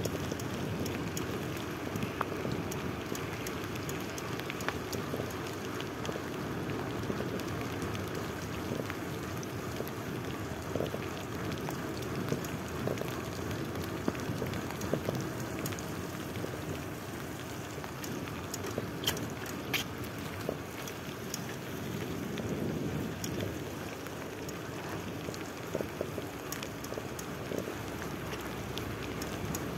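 Rain and bicycle tyres on wet asphalt while riding: a steady hiss with scattered small ticks.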